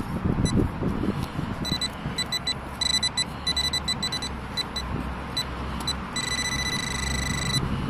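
Metal-detecting pinpointer beeping in short, uneven bursts of a high electronic tone as it is probed around a freshly dug hole, then holding one steady tone for about a second and a half near the end: it is right on a metal target in the soil. In the first second there are dull scrapes of a trowel in the earth.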